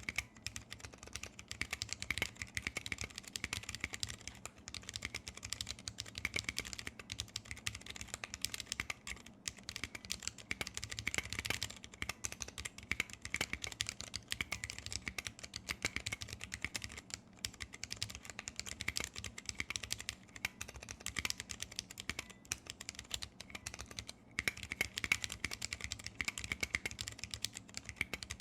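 Continuous fast typing on a 60% mechanical keyboard with vintage brown Alps switches lubed with PTFE, in a brass plate under PBT keycaps: a dense stream of keystroke clicks with a few brief pauses.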